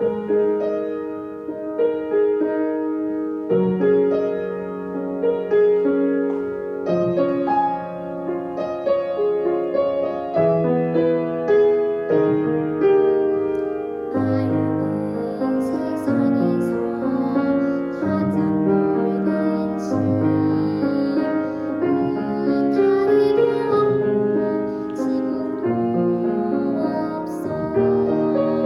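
Piano accompaniment to a Korean children's song, starting suddenly at the beginning and playing steady chords and melody; about halfway in it grows fuller, with added high accents.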